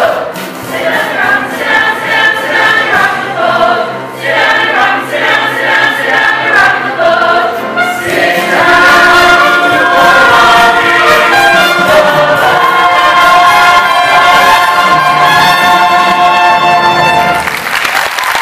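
A full cast chorus sings a brassy show tune with a pit orchestra. Short sung phrases give way, about eight seconds in, to one long, loud held final chord with trumpets, which cuts off about a second before the end.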